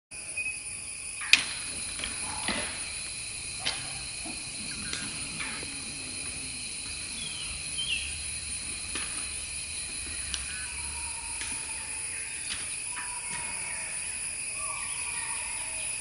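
Outdoor forest ambience: a steady high-pitched drone with scattered sharp clicks and snaps, the loudest about a second in, and a brief chirp near the middle.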